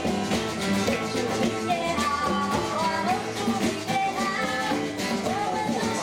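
Live music: a woman singing into a microphone over an acoustic guitar.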